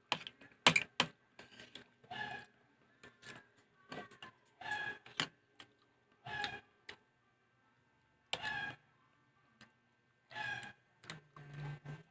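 Close-up eating sounds: short bursts of chewing and mouth smacking every second or two, with a few sharp clicks in between.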